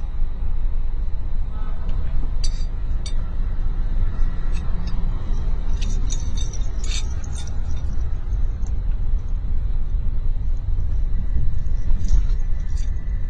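Steady low road rumble of a moving car heard from inside the cabin, with light clinks and rattles now and then, several around the middle and one near the end.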